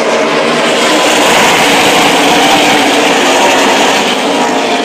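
Engines of NASCAR Camping World Truck Series race trucks (V8s) running on the speedway: a loud, steady drone of several engines at once.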